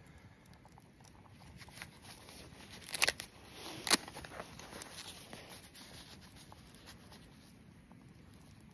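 Wood campfire crackling with small scattered clicks, with two sharper clicks about three and four seconds in, and fabric rustling as a cloth utensil pouch is handled near the end.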